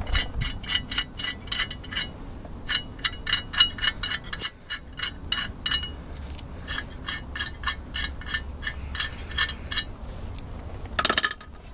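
Loose steel lug nuts clinking and rattling as they are spun off the wheel studs by hand and gathered in the palm, in quick runs of small metallic clicks. A denser metal clatter comes near the end.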